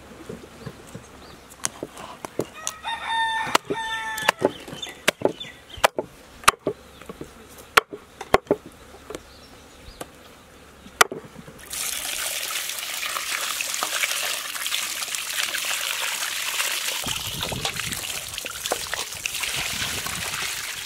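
A cleaver chopping raw chicken on a wooden block: about a dozen sharp, irregular chops over the first eleven seconds, with a rooster crowing briefly about three seconds in. From about twelve seconds a steady hiss takes over.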